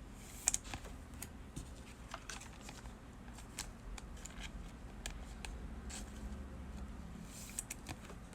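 Trading cards flipped through by hand: faint, irregular light clicks and flicks of card stock, about one every half second to second.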